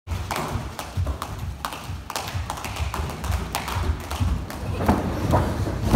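Several jump ropes slapping the floor and bare feet landing as a group of children skip rope out of step with each other: an uneven patter of sharp taps and dull thuds, several a second.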